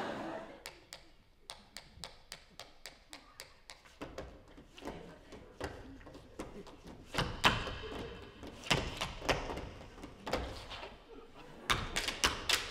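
Shoes tapping and stamping on a stage floor in a dance rhythm: a run of quick even taps, heavier thumps in the middle, and a fast dense flurry of taps near the end.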